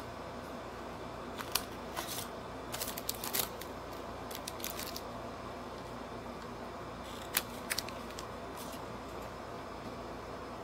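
Scattered sharp clicks and crinkles of a burger and fries being handled and eaten, in two clusters, a second or so in and again after about seven seconds. A steady low hum runs under them.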